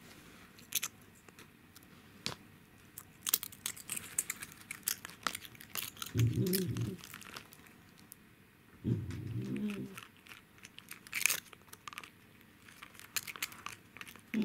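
A cat crunching and chewing a dried bonito chip, with irregular small crisp cracks. A short low voice murmur comes twice, about six and nine seconds in.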